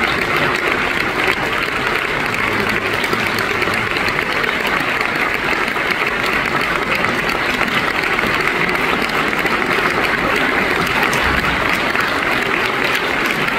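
Large theatre audience applauding steadily, a dense, unbroken clapping.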